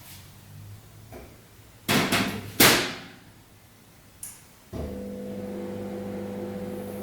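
Two loud knocks or clatters about two seconds in, then a microwave oven starts up with a steady hum a little before five seconds in.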